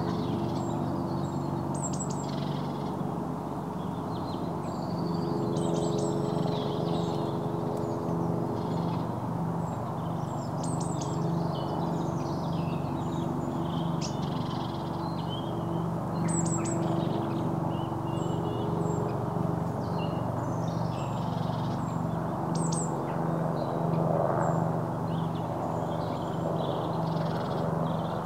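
Birds chirping again and again with short, high, falling calls, over a steady low hum that throbs evenly and a constant background rush.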